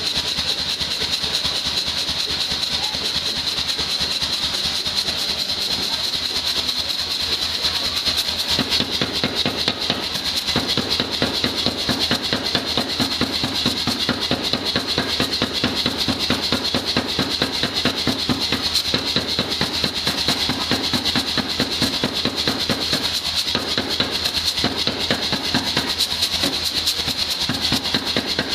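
Rapid, evenly spaced hammer blows on hot steel bar, several strikes a second, over a steady high hiss; the blows get fuller and heavier from about a third of the way in.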